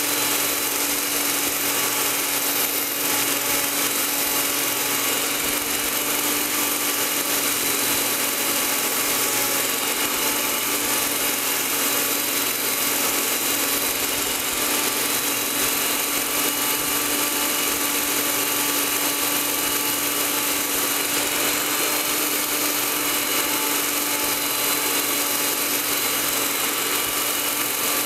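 Crank polishing machine running steadily as an abrasive belt polishes the journals of a Porsche 911E crankshaft turning slowly at about 40 rpm: a continuous motor whir with a steady hum and belt hiss. It is a light polish of journals already within new-machine tolerance.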